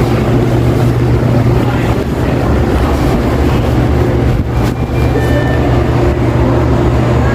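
Supermarket ambience: a loud, steady low hum under a continuous wash of background noise, with a faint short electronic beep about five seconds in.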